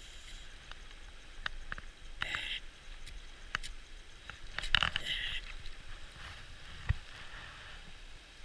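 Trout in a landing net held in a shallow stream, splashing briefly a few times, about two seconds in and again about five seconds in, with a few sharp clicks between.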